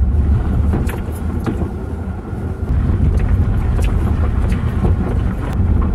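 A car driving slowly, heard from inside the cabin: a steady low rumble of engine and tyres, with scattered light clicks. The rumble eases off briefly about two seconds in, then picks up again.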